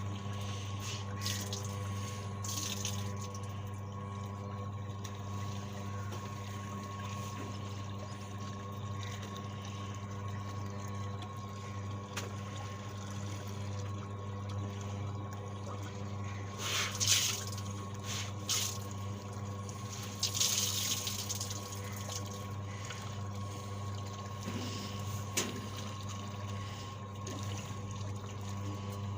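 Washing machine running: a steady electric motor hum with water swishing, and a few louder splashes of water partway through.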